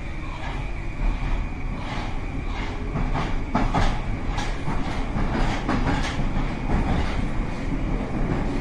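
Moskva-2020 metro train running, heard from inside the car as it accelerates: a steady low rumble with irregular sharp clicks from the wheels on the track.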